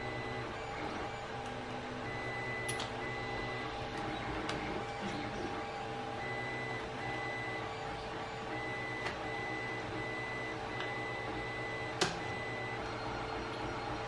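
A steady machine hum with a thin high whine that comes and goes. Over it are a few light, sharp clicks of a small screwdriver and loose metal parts being handled on a bench, the sharpest about twelve seconds in.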